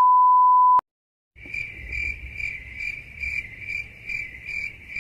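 A steady 1 kHz test-tone beep that cuts off sharply under a second in. After half a second of silence, crickets chirp in an even pulsing rhythm, about two chirps a second.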